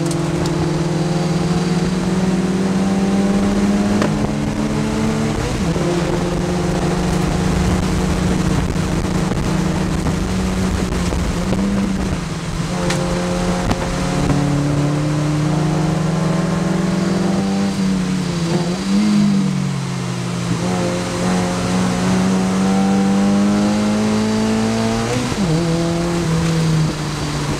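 Mazda MX-5 production race car's four-cylinder engine at racing speed, heard from inside the cockpit: the pitch climbs through each gear and falls at each shift, several times over, with a dip and wavering pitch about two thirds through as it slows and then pulls away again.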